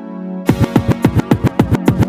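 Electronic background music: a held synth chord, then about half a second in a fast run of beats, each with a quick drop in pitch.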